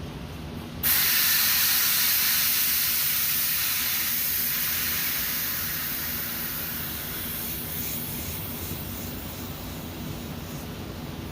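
Leftover refrigerant hissing out of an AC line as its fitting is loosened. It starts suddenly and loudly about a second in, then slowly dies away.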